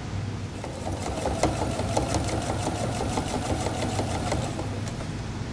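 Domestic sewing machine stitching at speed, its needle strokes in a quick even rhythm over a steady motor hum, starting about half a second in and stopping near the end.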